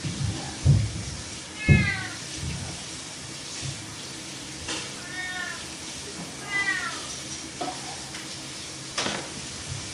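Domestic cat meowing three times, each meow short and falling in pitch, with a few sharp knocks in between, the loudest just before the first meow.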